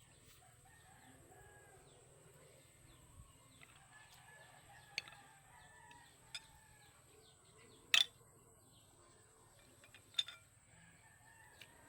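Roosters crowing faintly in the background, long wavering calls. A few sharp clicks and knocks break in, the loudest about eight seconds in.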